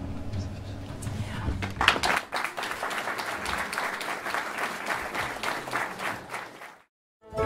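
Audience applauding, starting about a second and a half in and fading out near the end. At the very start the last notes of a langeleik, a Norwegian drone zither, are still dying away.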